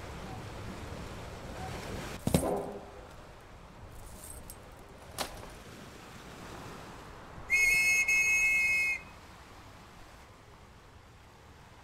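A single steady high whistle held for about a second and a half near the end, the loudest sound here. Earlier come a dull thump and a short click over a faint steady hiss.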